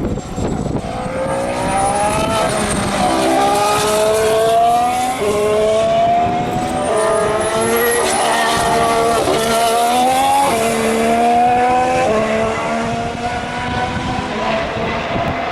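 2014 Formula One car's 1.6-litre turbocharged V6 hybrid engine accelerating hard through the gears: each gear is a rising note, cut by a quick drop in pitch at every upshift, several upshifts in a row, loudest in the middle and fading slightly near the end.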